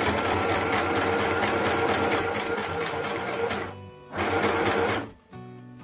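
Sew Simple FHSM 505 portable sewing machine stitching forward along a curtain hem: it runs steadily for about four seconds, stops briefly, runs again for about a second, then stops. Background music plays underneath.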